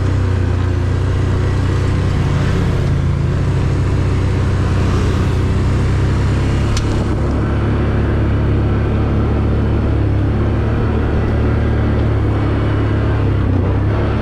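ATV engine running steadily under way, with a constant low hum and no change in speed.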